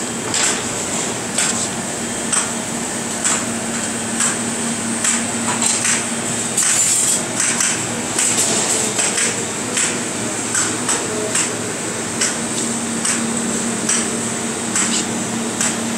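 Repeated sharp knocks, roughly one a second and not quite even, over a steady hum.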